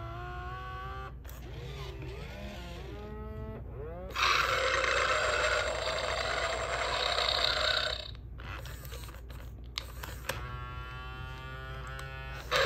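Mattel D-Rex animatronic toy dinosaur vocalising through its speaker: pitched, gliding calls for the first few seconds, a loud roar starting about four seconds in and lasting about four seconds, then more pitched calls near the end, over a steady low hum.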